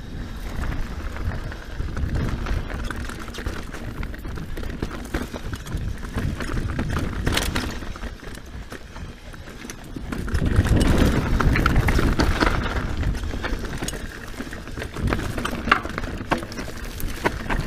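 Scott Genius full-suspension mountain bike ridden down rocky dirt singletrack: steady tyre rumble with the bike rattling and knocking over rocks and roots, louder for a few seconds about ten seconds in.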